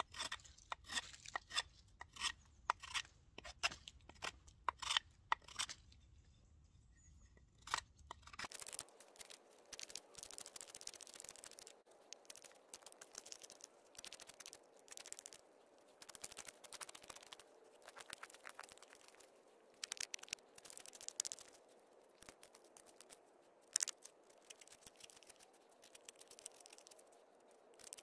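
Knife blade shaving and scraping a small wooden board: a run of short, crisp cutting strokes, then closer-set scraping strokes after a change about eight seconds in.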